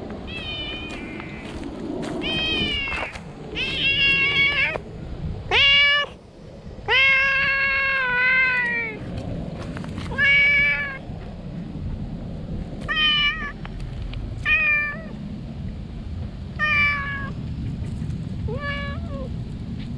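An orange-and-white stray cat meowing loudly and repeatedly, about ten calls, the longest and loudest in the first half and shorter, spaced-out meows later: excited greeting cries to a familiar person.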